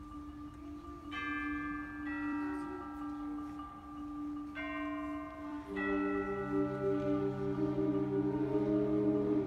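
Middle school concert band playing a slow passage. Over a held note, chimes and mallet percussion ring out about a second in and again about halfway through. Then the wind instruments come in with sustained low chords that grow louder near the end.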